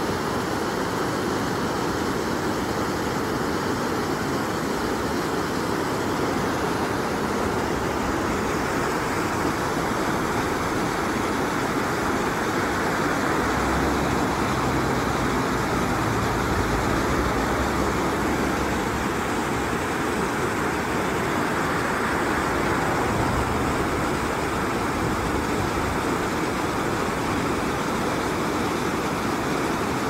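The Daiya River rushing in a steady, even flow of water, with a low rumble swelling for a few seconds around the middle.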